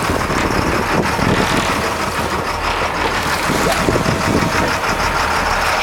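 Fishing boat's engine running steadily, a constant low drone under a wash of wind and sea noise.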